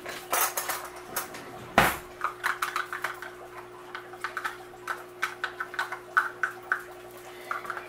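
A spoon knocking and clicking against an enamelled pot while the vegetables are worked over. There is one louder knock about two seconds in, then a run of quick light clicks.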